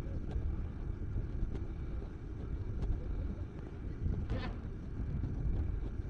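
Wind buffeting the microphone, a steady low rumble, with a brief higher sound about four seconds in.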